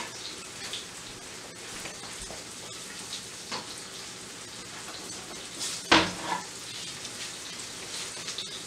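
A flour-coated beef rump roast searing in a hot skillet, with a steady crackling sizzle as it browns. About six seconds in there is a single sharp knock.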